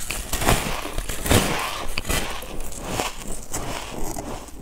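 Close-miked biting and chewing of a fluffy, snow-like sheet of ice: a run of crisp crunches and crackles, with one of the loudest bites about a second in.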